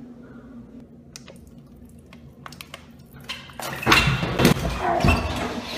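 A plastic water bottle being handled: faint clicks at first, then about three and a half seconds in, louder rustling and several knocks with water sloshing.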